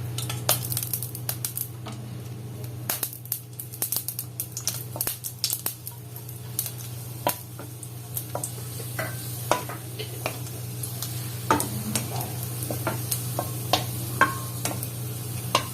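A piece of tamarind frying in hot sesame oil in a kadai, sizzling, while a spatula stirs and scrapes the pan with frequent clicks and taps. A steady low hum runs underneath.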